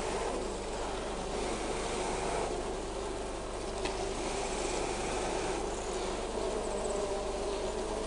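Honey bees buzzing steadily, the hum of a colony around an opened brood box.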